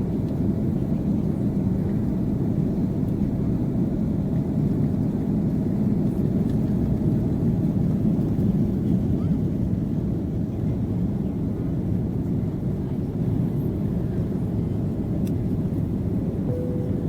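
Cabin noise inside an Airbus A330-300 with General Electric CF6-80E1 engines: a steady low rumble of engines and airflow.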